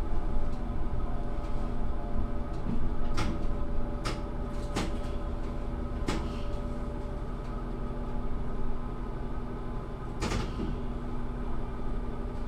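Diesel railcar cab ride: a steady hum from the engine and running gear, with a few sharp clicks or knocks at irregular intervals.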